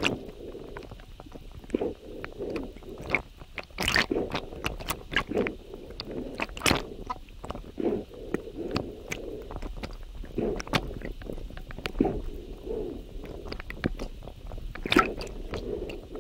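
Underwater sound from a speargun-mounted camera, sped up three times: irregular sharp clicks and knocks of diving gear, over a muffled water rumble.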